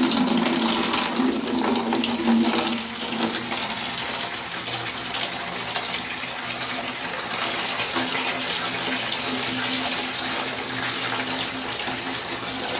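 Water rushing steadily out of a PVC water line under hydro-test pressure. It starts abruptly and is loudest in the first few seconds.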